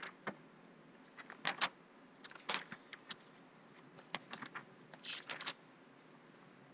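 Handling noise: a faint string of short clicks and rustles in small clusters, stopping about five and a half seconds in.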